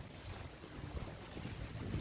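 Wind buffeting the microphone in an uneven low rumble, over a steady hiss of the sea washing on a rocky shore.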